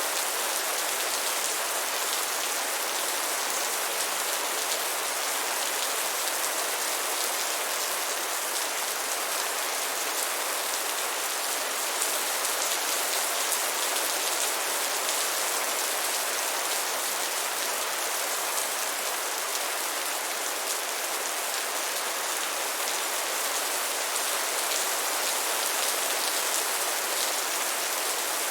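Steady rain falling: an even, unbroken hiss of many drops that holds the same level throughout.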